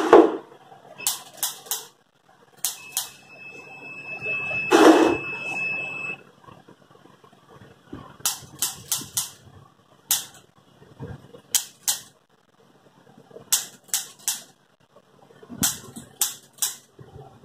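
Handheld chiropractic adjusting instrument firing on the spine, sharp clicks in quick bursts of three to five, repeated every second or two. A steady high-pitched tone sounds for a few seconds early on, and a brief, louder low sound comes about five seconds in.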